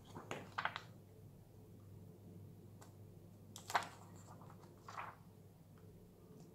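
Faint scrapes and clicks of a thin blade and a plastic pry pick worked into the glued seam of a phone's glass back cover, a few short strokes with the loudest a little past the middle.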